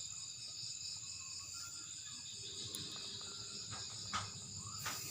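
Steady high-pitched chorus of insects trilling, with a couple of faint knocks near the end.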